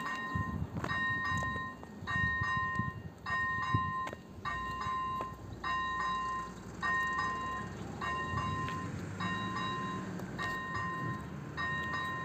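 Level-crossing warning bell of an AŽD 97 crossing signal, dinging steadily about once a second while the red lights flash and the barriers are down: the warning that a train is approaching.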